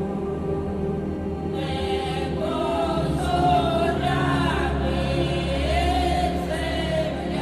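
Background music with choir-like voices, a wavering sung melody coming in about two seconds in over sustained low tones.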